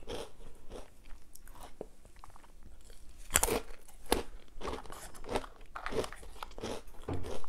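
Crisp Nutella & Go breadsticks bitten and chewed, a run of sharp crunches with the loudest about three and a half and four seconds in.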